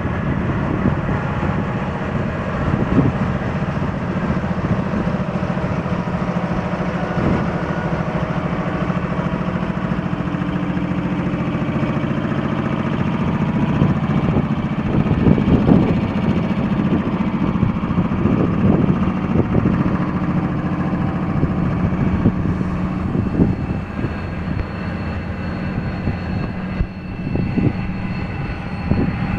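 Pakistan Railways AGE-30 diesel-electric locomotive standing with its engine idling, a steady low hum with a few louder swells around the middle.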